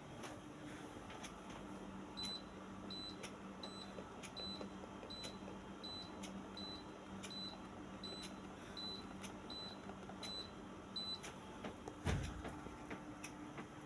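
A run of short, high electronic beeps repeating evenly, roughly three every two seconds, for about nine seconds over a steady low hum with faint ticking. A single low thump follows near the end.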